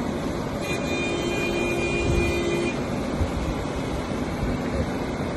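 Excavator engine running steadily, with a steady whine of two pitches that comes in about a second in and stops near three seconds.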